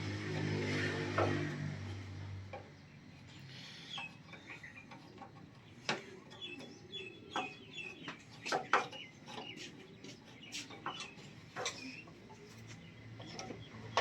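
A steady motor hum for about the first two and a half seconds, then it stops. After that come scattered metal clinks and taps, with birds chirping.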